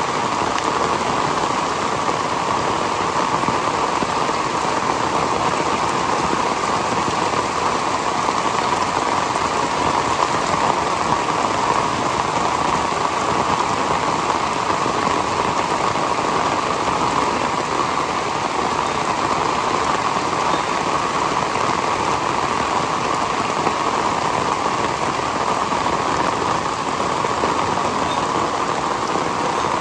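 Heavy tropical rain pouring down steadily, an even, unbroken hiss with no letup.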